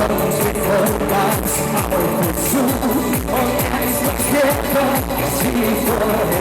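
German Schlager pop song with a steady kick-drum dance beat and a male voice singing.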